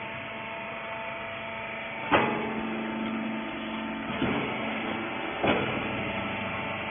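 Hydraulic rag baler's motor and pump running with a steady hum, and three sharp metallic clanks about two, four and five and a half seconds in, the first the loudest.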